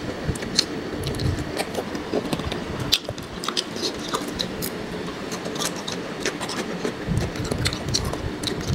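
Close-miked chewing and wet mouth clicks of someone eating, many short sharp clicks and smacks, over a low steady hum.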